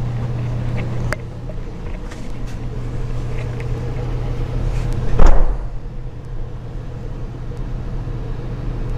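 A steady low mechanical hum, with a sharp click about a second in and a loud thump about five seconds in.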